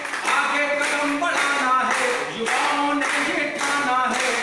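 A crowd clapping in a steady beat, about two claps a second, as accompaniment to a man singing a slogan song unaccompanied.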